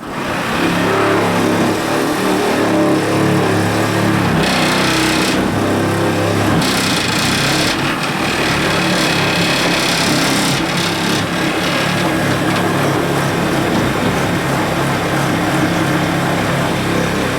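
A small engine or motorized tool running steadily with a pitched hum, cutting in suddenly at the start.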